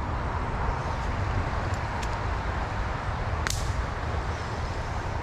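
Steady rushing of creek water, with one sharp whip-like snap about three and a half seconds in.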